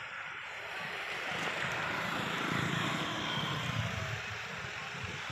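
A vehicle passing on a road: a rushing noise that swells to a peak about three seconds in and then eases off.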